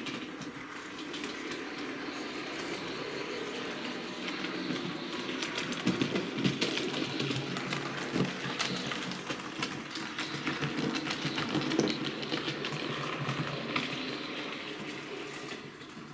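Hornby OO-gauge model steam locomotive (Duchess class) running on the layout: a steady whirr from its small electric motor with rapid clicks of the wheels over rail joints and points. It grows louder as it passes close by in the middle and eases off near the end.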